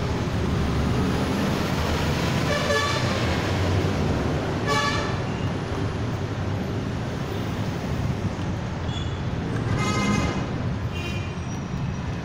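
Steady road traffic noise, with a few short horn toots, the clearest about five and ten seconds in.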